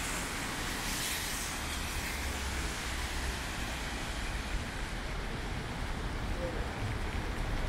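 Heavy rain falling steadily on a city street, an even hiss with a low rumble beneath and a brief swell of hiss about a second in.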